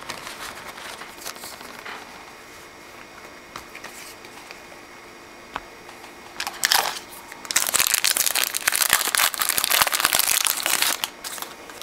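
A trading-card pack's wrapper being torn open by hand: after some faint handling and a short rustle, a loud, dense crinkling of the wrapper for about three seconds in the second half.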